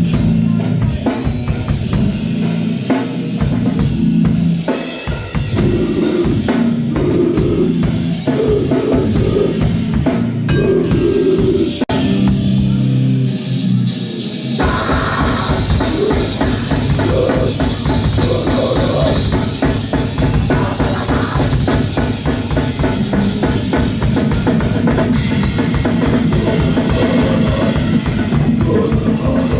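Live rock band playing loud, with a driving drum kit. The drums drop out for about two seconds around the middle, then the full band comes back in.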